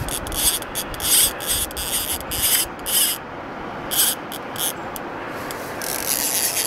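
Fly reel's click drag ratcheting in short, irregular spurts as a hooked pike is played on the line.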